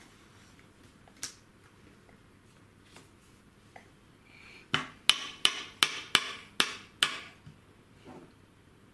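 A nut knocked against a hard countertop: one sharp knock about a second in, then a quick run of seven loud knocks, about three a second, from near the middle.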